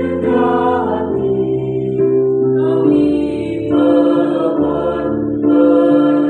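Mixed choir of women's and men's voices singing held chords in harmony, moving to a new chord about once a second.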